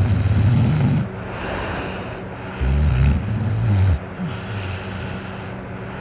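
A man snoring loudly in drunken sleep: two low snores, one about a second long at the start and another from a little before the midpoint to about two-thirds through. Under them runs the steady whir of an electric fan.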